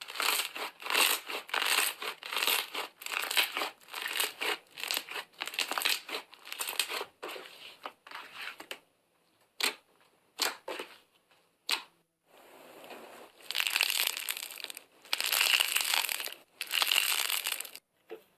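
Slime being squeezed and worked by hand, giving a quick run of crackly squishes about two or three a second, then a few sharp pops, then longer crackling stretches near the end.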